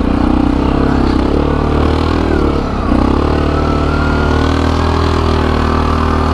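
ATV engine running steadily under way, its revs dipping briefly about three seconds in and then picking back up, with a thin whine rising slightly above the engine after that.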